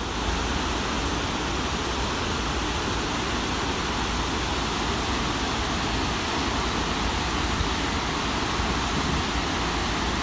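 Snake River falls rushing steadily over rock ledges and a long weir: an even roar of falling water.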